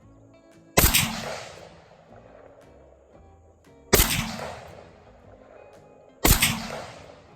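M1 Garand rifle firing .30-06 rounds: three shots about two and a half to three seconds apart, each followed by a fading echo. Background music plays underneath.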